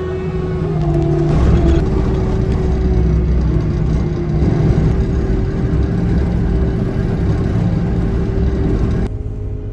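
Heavy vehicle engine running under load with a strong low rumble, its pitch shifting about a second in. About nine seconds in the sound cuts abruptly to a quieter, duller hum.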